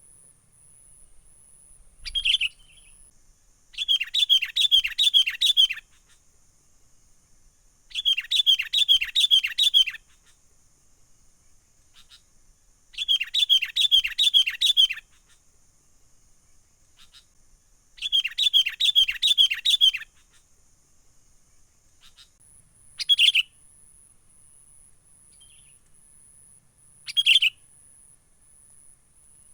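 Sooty-headed bulbul (kutilang) giving its excited, agitated call, played as a trapping lure. Four bursts of rapid repeated chattering notes come about every five seconds, with single short calls between them.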